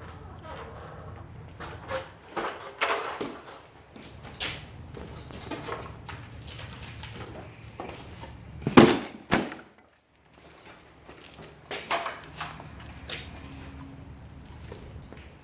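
Intermittent clicks and knocks of parts and tools being handled, with a louder clatter of knocks about nine seconds in.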